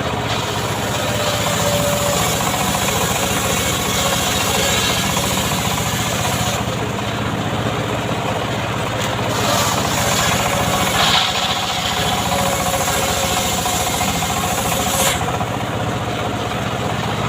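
Homemade chainsaw's small engine running steadily and loudly, with a hissy edge that drops away briefly a few times.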